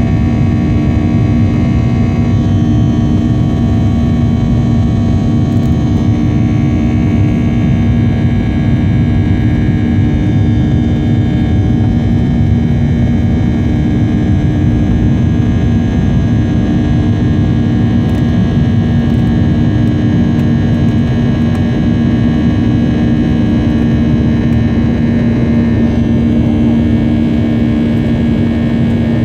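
Boeing 737 jet engines running steadily at takeoff or climb power: a loud, even rushing drone with a steady hum of several held tones.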